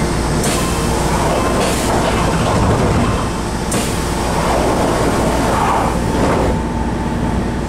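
Passenger door of a Semboku Rapid Railway 5000 series train sliding shut, heard from inside the car over the steady noise of the stopped train and platform. Near the end the doors meet with a thud, and the sound turns duller.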